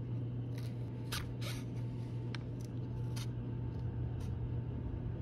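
Thread being drawn through stitching holes in a leather sheath by hand: a handful of short, rasping swishes at uneven intervals, over a steady low hum.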